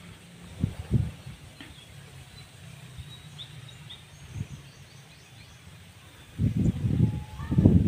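Quiet open-field ambience with a few short, faint bird chirps, then gusts of wind buffeting the microphone in the last second and a half.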